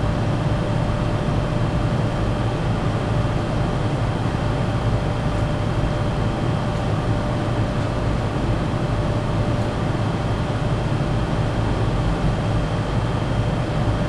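HVAC air handler blower running, a steady rush of moving air with a low hum and a thin steady whine.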